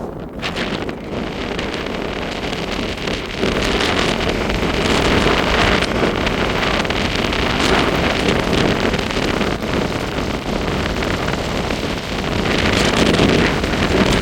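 Blizzard wind blowing hard against the microphone, a rushing noise that gusts louder about three seconds in and again near the end.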